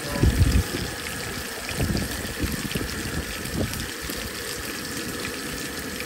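Salmon fillets sizzling steadily in a frying pan on a propane camp stove. Low rumbles rise over the sizzle about a quarter second in, loudest, and again near two and three and a half seconds.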